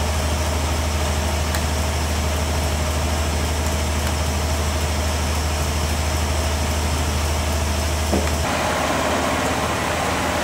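A sawmill's engine running steadily with a low hum, with a few faint taps from a hammer. About eight seconds in the hum drops and a hissier machine noise takes over.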